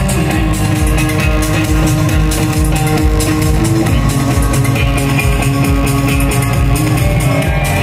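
Electric guitar played live through a loud PA, holding long sustained lead notes over a dance backing track with a steady kick-drum beat. The held note steps down to a lower pitch about four seconds in.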